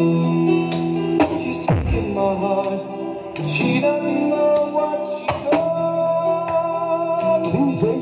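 Music with singing played loud through a stacked sound system of Geostorm 15-inch speakers on a sound check, with a falling bass sweep about two seconds in.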